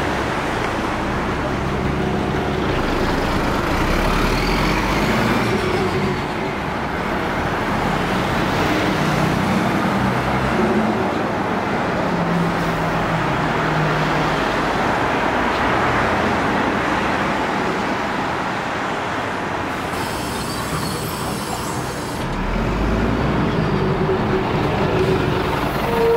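City street traffic with diesel city buses: bus engines running over steady road noise, the engine pitch shifting now and then.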